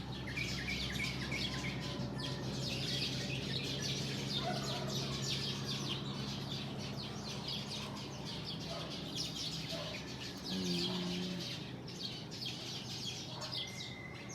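A flock of small birds chirping continuously, many quick high chirps overlapping, over a low steady hum that stops a little past the middle.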